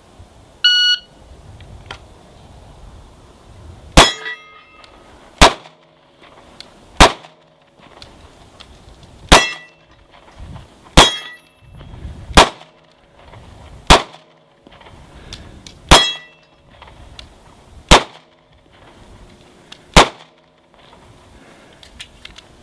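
Shot timer gives one short beep, then a Springfield XD9 3-inch 9mm pistol fires ten shots about one and a half to two seconds apart at two steel targets. Several shots are followed by the brief ring of a struck steel plate.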